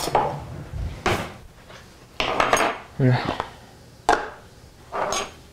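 A metal table knife and a butter dish handled on a kitchen countertop: a few separate clinks and knocks, the sharpest about a second in and about four seconds in.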